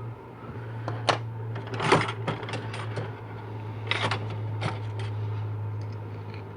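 Sharp metallic clicks and taps, loudest about a second and two seconds in, with a few more spread over the next couple of seconds, as a retaining clip is worked into a valve bore of a 4L80E automatic transmission pump. A steady low hum runs underneath.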